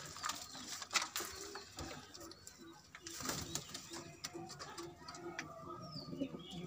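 Domestic pigeons cooing in a loft, with a run of short low coo notes in the second half and a few sharp clicks and rustles in between.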